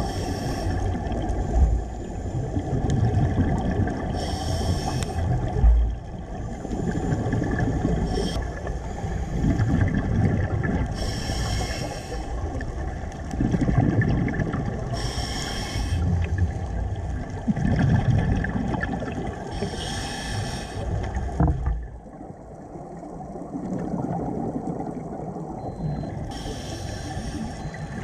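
Scuba breathing heard underwater through the camera housing: a diver's regulator with a burst of exhaled bubbles every few seconds over a low rumble.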